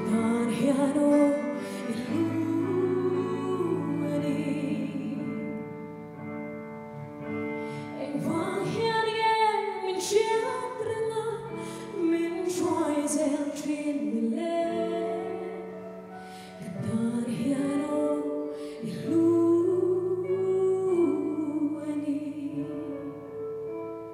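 A woman sings a Mizo gospel song solo into a microphone, in long phrases over sustained backing chords.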